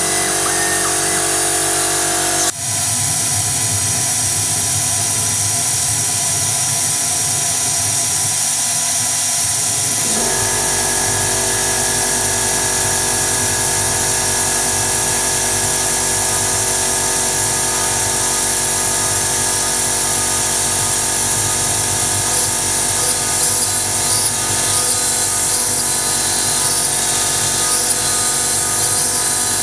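CNC router's 2.2 kW spindle running and cutting, a steady whine made of several tones. The sound changes abruptly about two and a half seconds in, and again, with new tones joining, about ten seconds in.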